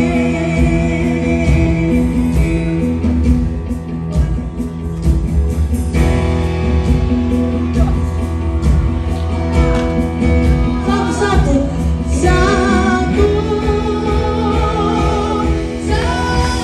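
Female gospel singer singing into a microphone over instrumental backing of sustained chords and a steady drum beat. Past the middle her voice bends through a run of quick, wavering notes.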